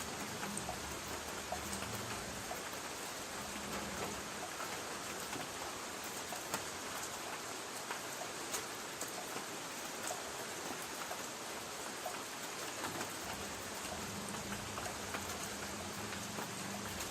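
Light rain falling on a tin roof: a steady patter with many small scattered drop ticks.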